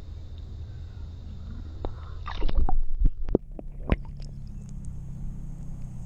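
Muffled low rumble of water around an underwater action camera. About two seconds in come loud splashing and sloshing as the camera is pulled up through the surface, with a few sharp splashes up to about four seconds in. The sound then opens into open air.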